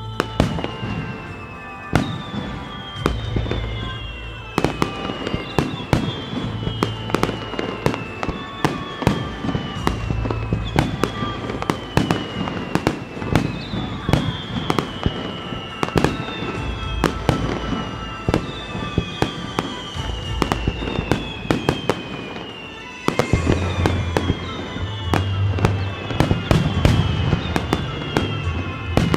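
Aerial fireworks shells bursting in quick succession, many sharp bangs, with a falling whistle that recurs every second or two. Music plays over loudspeakers underneath for a display set to music, and the barrage grows denser near the end.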